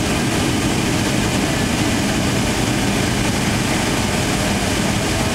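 Boeing 757 jet engines at low taxi thrust heard from inside the cabin: a steady hum and hiss with a low, even drone underneath.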